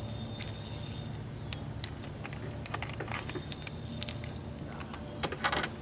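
Fishing reel being cranked in two stretches, its gears whirring with light clicks, over a steady low hum. A brief louder burst comes near the end.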